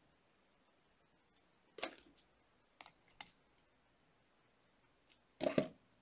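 Small sharp clicks of metal jewelry tools and copper wire being handled: one just under two seconds in, two around three seconds in, and a louder double click near the end.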